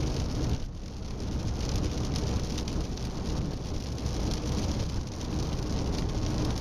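Seat Leon 1M driving along: steady road and engine noise with a heavy low rumble, dipping briefly just under a second in.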